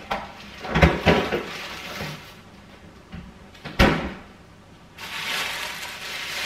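Kitchen handling sounds: a few sharp knocks and bumps from a cupboard door and items being set down, loudest around a second in and again just before four seconds. A plastic bag then rustles steadily through the last part.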